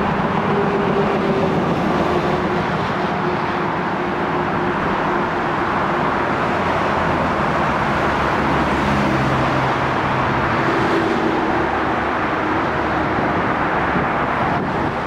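Steady city traffic noise mixed with a distant Seoul Metro Line 2 electric train running across the railway bridge, with faint low tones that come and go.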